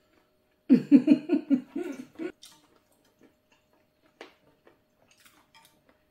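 A short burst of a person's voice, pulsing several times a second, about a second in, then faint clicks of chopsticks and chewing.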